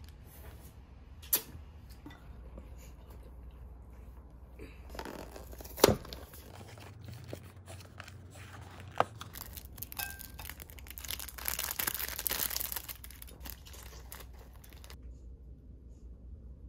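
Snack packaging being handled and torn open: a few sharp clicks and taps, the loudest about six seconds in, then about two seconds of crinkly tearing of a plastic wrapper past the middle.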